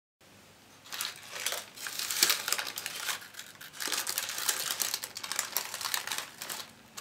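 Baking paper lining a multicooker bowl crinkling and rustling as hands grab, pull and fold it, in irregular crackles starting about a second in.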